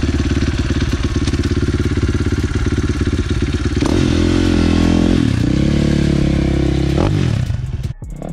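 KTM dirt bike engine running: a steady idle, then revved about four seconds in, held for a moment and let back down, with a short blip of the throttle near the end before the sound cuts off.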